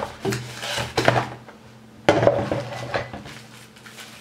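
Cardboard subscription box and its contents being handled: a few sharp clattering knocks and rustles, about a second apart, as an item is lifted out.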